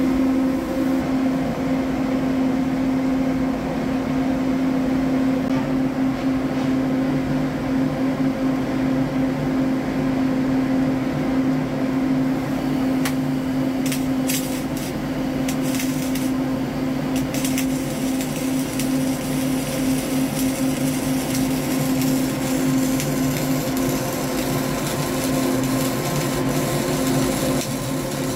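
A steady hum throughout; about 13 seconds in, a CO2-shielded flux-cored arc welder's arc strikes and crackles and sizzles steadily as a vertical (3G) weld is run on steel plate.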